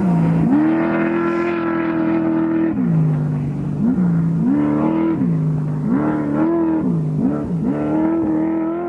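Off-road race vehicle's engine under hard throttle, its revs climbing and dropping again and again. The revs hold high for about two seconds half a second in and again near the end, with quicker blips up and down in between.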